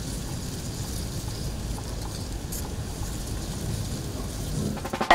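Steady outdoor ambience: a low rumble with a faint hiss above it, no tune or voice.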